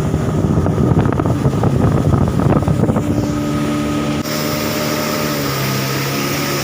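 Small motorboat's engine running at a steady drone, with wind buffeting for the first few seconds.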